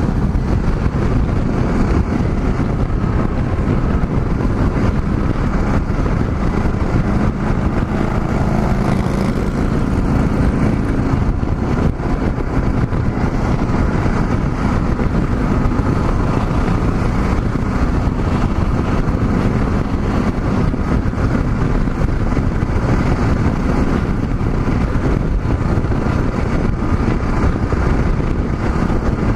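Wind rushing over the microphone of a motorcycle at highway speed, with the Yamaha XT660Z Ténéré's single-cylinder engine running steadily underneath.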